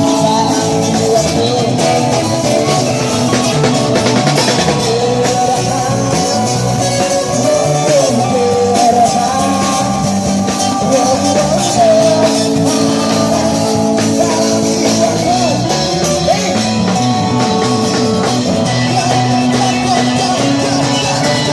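Live rock music from a busker band: guitar playing with a singing voice carrying the melody.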